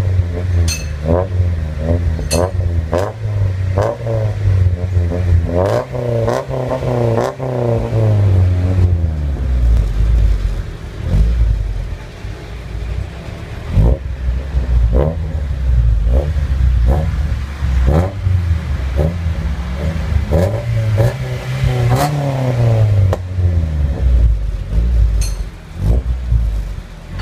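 Honda Civic EG engine through a Ganador full titanium exhaust, idling between quick throttle blips. Two longer revs climb and fall back, one about six seconds in and one about twenty-one seconds in.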